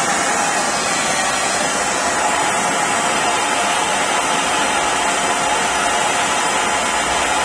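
Blowlamp flame burning steadily with an even rushing hiss, heating a copper pipe fitting for soldering.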